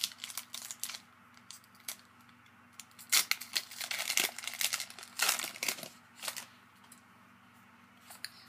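Foil wrapper of a Pokémon trading card booster pack being torn open and crinkled by hand, in scattered crackles at first and a dense run of crinkling from about three to six and a half seconds in.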